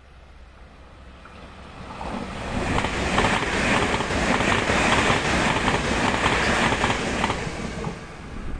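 Taiwan Railway train passing close by at high speed: the rumble and rapid clatter of wheels on rail build over about two seconds, stay loud for about five seconds, then fade.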